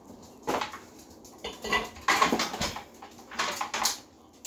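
Hard metal parts clinking and rattling as they are handled, in several short clattery bursts.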